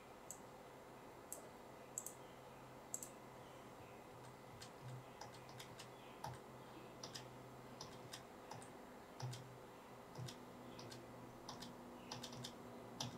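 Faint clicking and tapping of a computer keyboard and mouse. First come a few single clicks about a second apart, then a quicker, irregular run of taps from about four seconds in.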